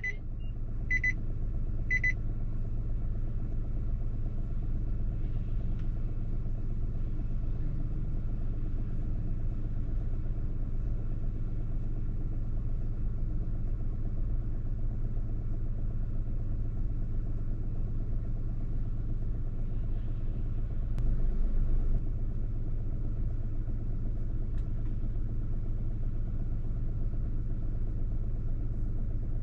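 Steady low rumble of a car's engine and cabin. Right at the start, an electronic warning chime beeps three times about a second apart.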